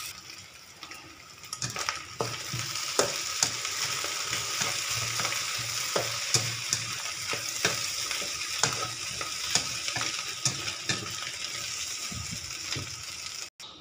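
Stir-fry of okra, potato and egg sizzling in a non-stick wok, with a spatula scraping and knocking against the pan about twice a second as the food is tossed.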